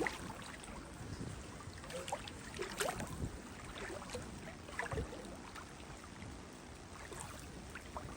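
Feet wading through shallow creek water, with irregular small splashes and sloshes over the steady sound of the flowing creek.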